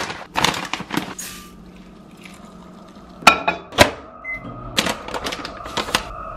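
Food-prep handling sounds: a plastic bag of rolled oats rustling as it is poured, then two sharp clicks and a short electronic beep from a microwave oven, then the rustle of a resealable pouch of milled flax seed being opened.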